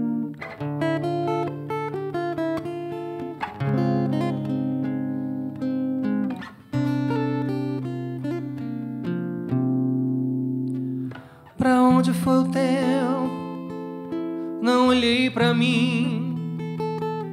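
Acoustic guitar playing a slow song introduction: plucked chords that ring and change every second or two. About twelve seconds in, higher wavering notes come in over the chords.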